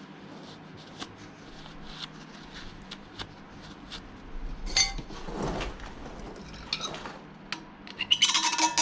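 Hand tools and metal parts clinking and scraping while working on a driveshaft U-joint yoke, with scattered light ticks, a sharp clink about five seconds in, and a burst of louder metallic clattering near the end.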